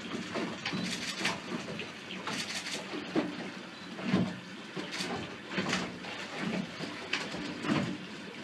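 Seawater lapping and slapping against the hull of a drifting glass-bottom boat in irregular splashes, about one or two a second, with dull low knocks under them.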